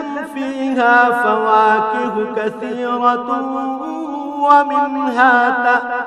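A man chanting a Qur'an verse in Arabic in the melodic tajweed style, drawing out long held notes joined by wavering, ornamented turns.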